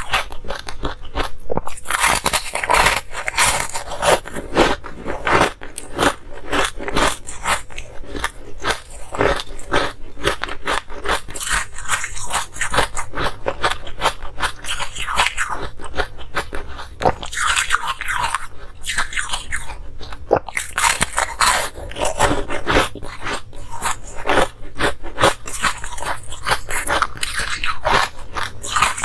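Close-miked crunching and chewing of a paw-shaped piece of frozen ice, crushed between the teeth with rapid crackling throughout and louder crunching bites every few seconds.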